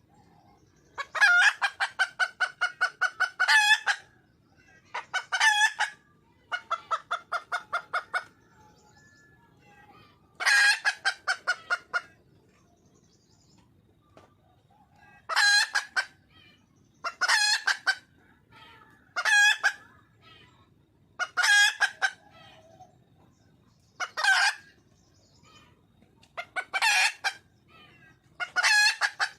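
Red junglefowl hen calling to attract a rooster: bouts of rapid, repeated loud clucking notes, each bout lasting from half a second to a couple of seconds, with short pauses between.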